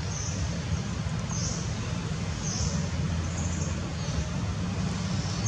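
Steady low outdoor rumble with faint, short, high-pitched squeaks about once a second.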